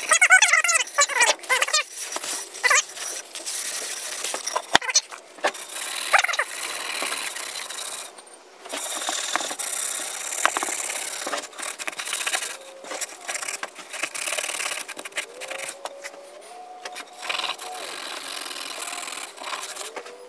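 Scotch-Brite pad wet with turpentine and boiled linseed oil scrubbing back and forth over the wooden body of a Stanley No. 31 transitional plane, a rasping rub of repeated strokes. A few squeaky strokes sound near the start.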